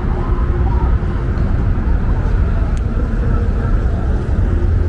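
City street traffic: cars driving along a wide avenue, a steady low rumble.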